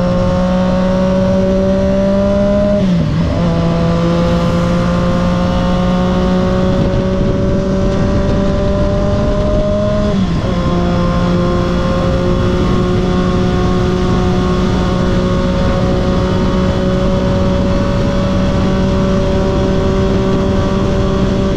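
Triumph Daytona 675's inline three-cylinder engine pulling under steady acceleration on the road, its pitch climbing slowly, broken by two upshifts where the pitch drops, about three seconds in and again about ten seconds in.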